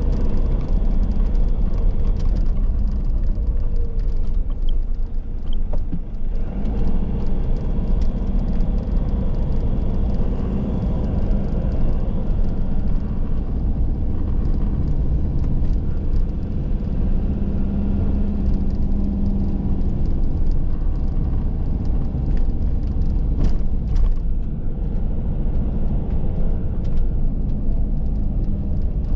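Camper van driving: a steady engine and road rumble with no clear breaks.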